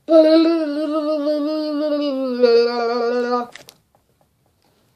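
A boy's voice holding one long sung note for about three and a half seconds, sinking slowly in pitch with a step down about two seconds in, then cutting off.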